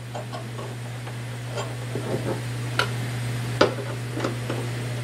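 Screws being driven by hand into the lathe's mounting board: a handful of light, sharp clicks and ticks of metal hardware, over a steady low hum.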